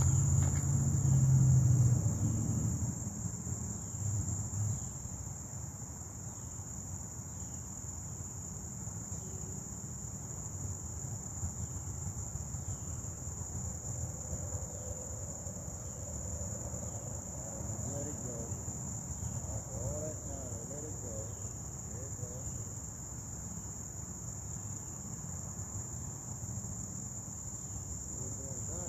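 A steady, high-pitched insect chorus of the cricket kind, trilling without a break. A low rumble is loudest in the first few seconds and then fades.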